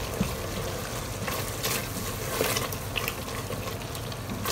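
Silicone spatula stirring and scraping a thick, creamy tomato gravy around a stainless steel pressure cooker, with irregular wet strokes and scrapes.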